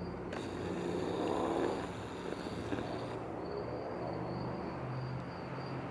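Steady high-pitched insect drone with a low hum underneath, and a broad whooshing swell that rises and fades in the first three seconds.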